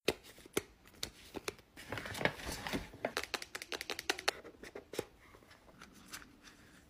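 Hands handling cardboard product boxes, with quick sharp clicks, taps and rustles of the packaging. The sounds thin out and grow faint over the last second or two.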